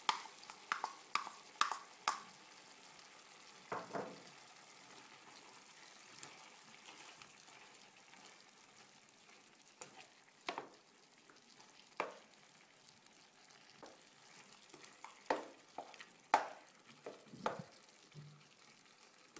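A plastic spatula scrapes diced tomatoes from a bowl into a non-stick pan of chicken and then stirs the pan, giving scattered short knocks and scrapes. A faint sizzle of the simmering curry and coconut-milk sauce runs underneath.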